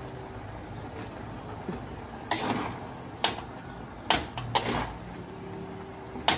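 A cooking utensil scraping and knocking against a wok while cooked spaghetti is tossed: several short scrapes and sharp clicks, starting about two seconds in and again near the end, over a steady low hum.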